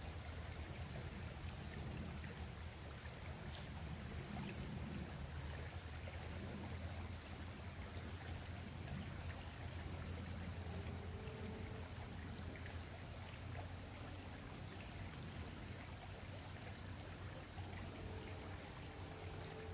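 Faint, steady rushing of flowing river water, with a thin constant high tone running under it.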